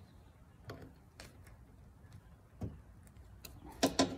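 Small metal hydraulic control-valve parts clicking and tapping as they are handled and fitted by hand: a few scattered light clicks, then a louder cluster of knocks near the end.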